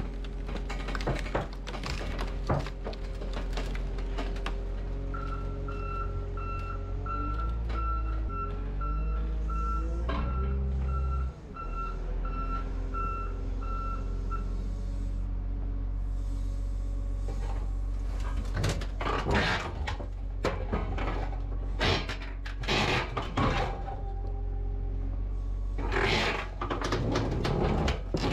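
Heavy diesel machine running, its reversing alarm beeping about once a second for some ten seconds while the engine revs up. Later come clusters of loud clanks and bangs from scrap metal being handled.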